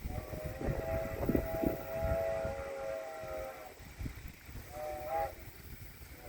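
Steam locomotive whistle blowing in the distance: a long multi-tone blast of about three and a half seconds, then a short one about five seconds in. This is the approaching steam train's crossing signal.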